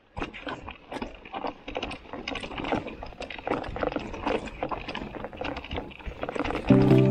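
Canyon Neuron:ON e-mountain bike rolling down a rocky trail, its tyres crunching over stones and gravel and the bike rattling over the bumps in a dense, irregular clatter. Music comes in near the end, louder than the riding.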